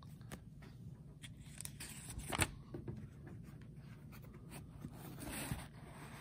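Open Bibles being handled against each other: thin paper pages rustling and small taps, with a sharper knock about two and a half seconds in and a short rustle near the end.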